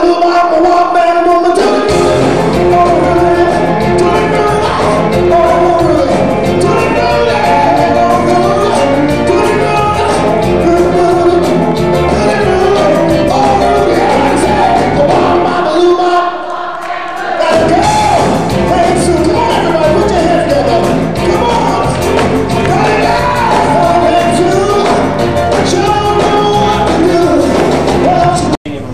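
Rock and roll band playing with a singer over bass and drums. The low end drops out for about a second and a half midway, then the full band comes back in, and the music cuts off abruptly near the end.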